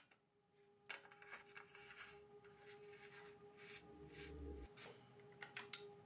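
Bottom bracket cup being screwed by hand into a bicycle frame's threaded shell: a faint, irregular run of small metal scraping and clicking sounds as the threads turn, with a soft low bump about halfway through.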